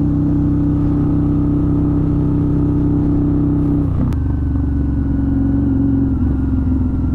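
Harley-Davidson Night Rod's Revolution V-twin running steadily under way. About four seconds in the engine note dips slightly, with a brief click.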